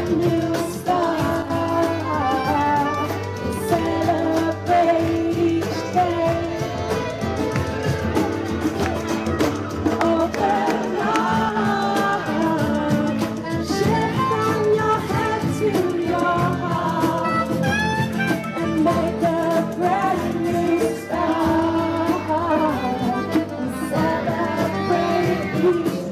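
Live acoustic band playing: strummed acoustic guitars, hand drums and a trumpet, with a woman singing lead.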